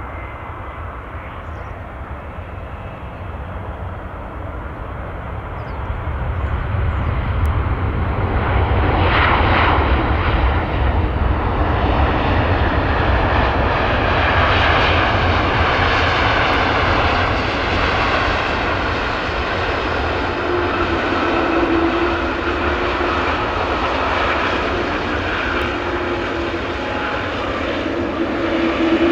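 Boeing 787-9 Dreamliner's jet engines on landing: the noise swells over several seconds as the airliner comes past, then runs on steadily through the rollout. A steady hum comes in about two-thirds of the way through, and the noise rises again near the end.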